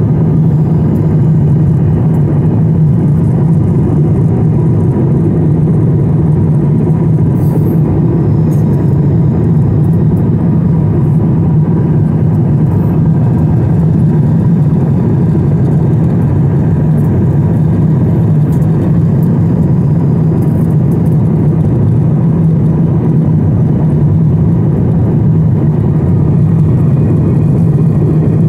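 Steady, even drone of an Airbus A350 cabin at cruise, engine and airflow noise heard from a window seat, heaviest in the low range.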